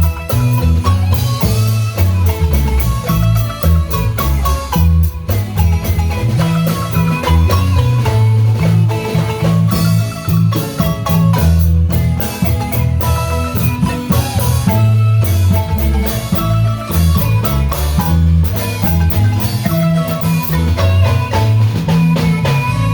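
Marimba band playing a lively tune: quick mallet notes over a steady, moving bass line.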